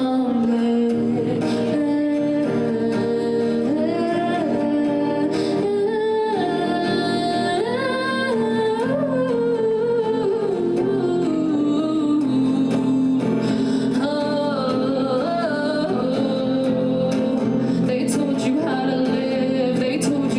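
A duo playing a song: a female voice singing a melody that moves up and down, over plucked string accompaniment.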